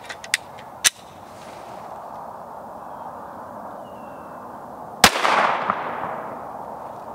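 A single 9mm shot from a Glock 34 Gen 5 pistol about five seconds in, a sharp crack with an echo that fades over about a second and a half. Before it come a few short sharp clicks in the first second, over a steady outdoor hiss.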